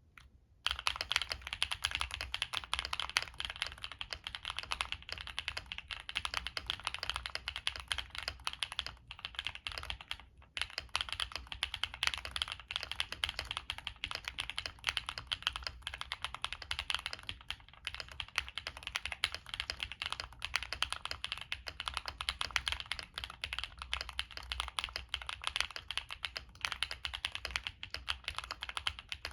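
Continuous fast typing on a Monsgeek M1 mechanical keyboard with stock Epomaker Zebra switches, a POM plate, tape mod, plate foam and Cherry doubleshot keycaps: a dense stream of key clacks, with brief pauses about ten and seventeen seconds in.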